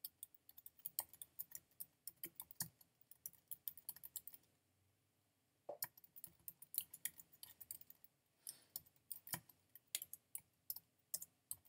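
Typing on a computer keyboard: rapid runs of key clicks, broken by a pause of about a second near the middle, then more typing.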